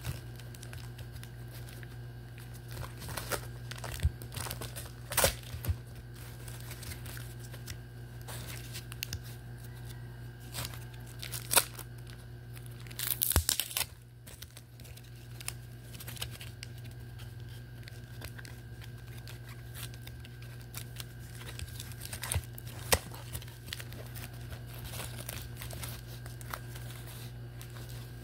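Plastic wrapping on a trading-card set crinkling and crackling as it is handled and pulled against a taped cardboard mailer, in scattered sharp crackles with a denser, louder rustle about thirteen seconds in. A steady low hum sits underneath.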